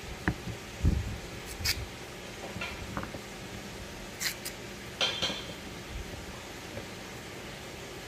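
Kitchen knife scraping and slicing a raw carrot held in the hand, a string of short scrapes and clicks, with a few soft knocks on a wooden cutting board.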